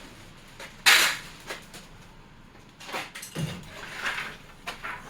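A wooden box being taken apart: one sharp, loud knock about a second in, then several smaller knocks and scrapes of boards being handled.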